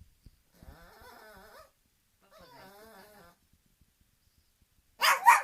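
Dog whining softly twice, each time for about a second, then a sudden loud burst near the end.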